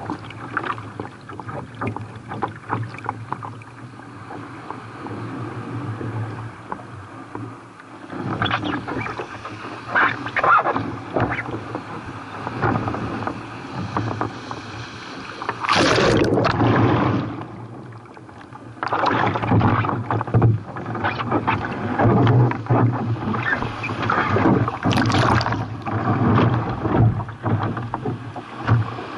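Sea water splashing and rushing around a kayak in breaking surf, with short irregular splashes throughout. There is a loud surge of water a little past halfway, followed by a brief lull.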